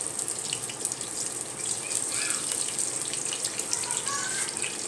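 Garlic paste frying in hot oil in a nonstick pot: a steady sizzling hiss with many small crackling pops.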